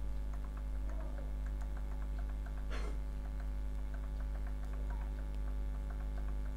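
Steady electrical mains hum with faint, scattered small ticks, and one brief higher squeal about three seconds in.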